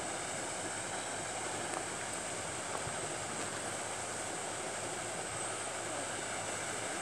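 Steady, even rushing hiss of outdoor ambience, with no distinct events standing out.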